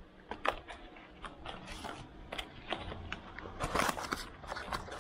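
Spare engine parts and their packaging being handled: irregular rustling with light clicks and knocks, busiest and loudest about four seconds in.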